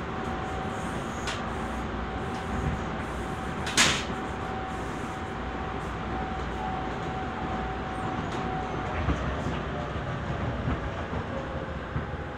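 Tobu 20070 series electric train running, heard from inside the car: a steady rumble of wheels on rail with a thin steady whine. From about ten seconds in the whine slides gently downward as the train slows for the next station. A single sharp clack about four seconds in stands out above the rumble, with a few fainter clicks.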